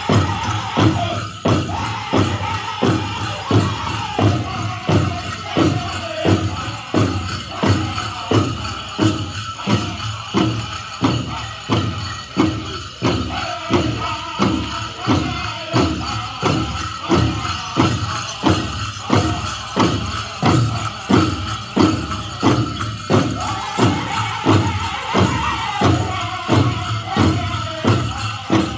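Powwow drum group beating a large hand drum in a steady beat of about one and a half strokes a second, with the group's voices singing over it and the jingle of the dancers' bells.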